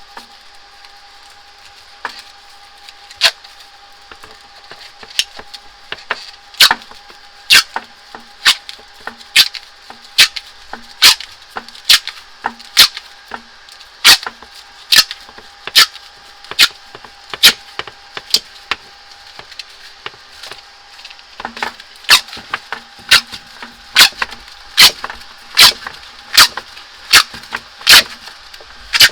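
Tape being pulled off the roll and wrapped around an air conditioner's pipe set, a sharp crackle with each pull, a little more than one a second. There is a short pause about two-thirds through.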